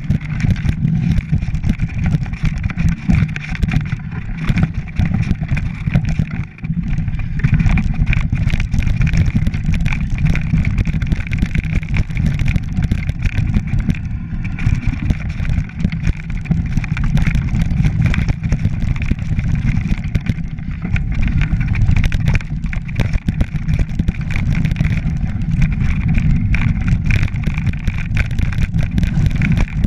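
Mountain bike rattling and clattering over a loose rocky track: a steady low rumble shot through with many small knocks and clicks.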